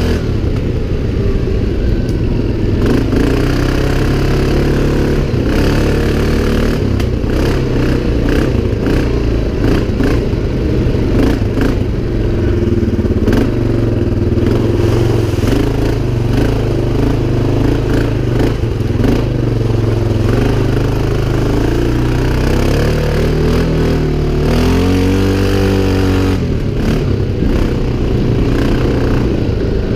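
CFMOTO 500 ATV's single-cylinder engine running under changing throttle off-road, its pitch rising and falling, with a rev up and back down about 25 seconds in. Intermittent clattering knocks run through it.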